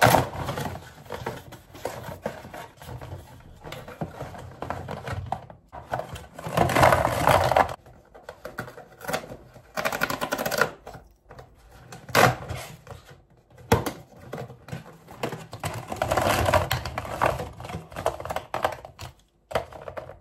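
Typing on a computer keyboard: rapid, irregular clicking of keys in bursts, some stretches louder and denser than others.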